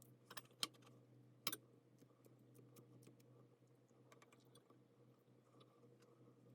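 Three sharp clicks in the first second and a half, then faint scattered ticks over a steady low hum.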